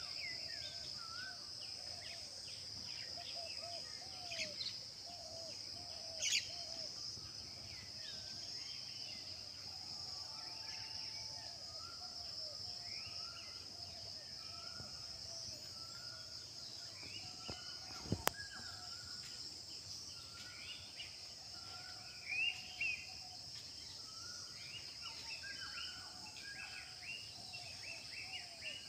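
Many birds chirping and calling in short, overlapping phrases over a steady high-pitched background hum, with a single sharp click about eighteen seconds in.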